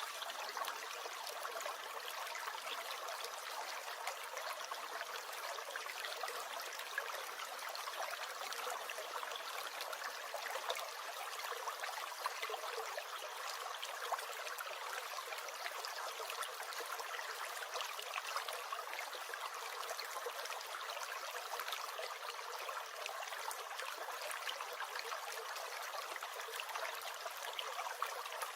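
Small stream gurgling and trickling steadily, with many small splashes.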